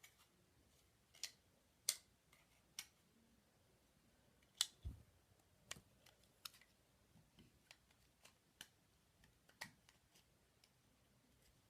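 Faint, scattered clicks and taps of plastic toy parts being handled and pressed together, with a soft low thump about five seconds in.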